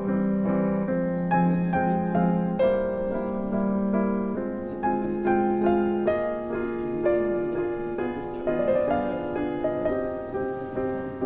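Background piano music: a melody of struck notes following one another at an even pace.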